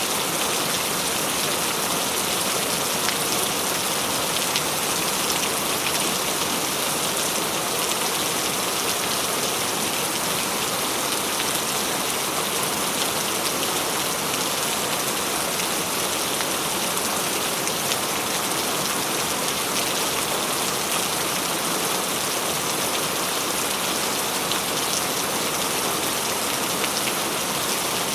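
Steady rain falling on a surface, an even hiss of many drops with scattered fine patters and no let-up.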